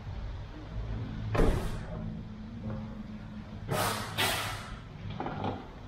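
Car window glass being wiped clean: several short swishes, the loudest a pair about four seconds in, over a steady low hum.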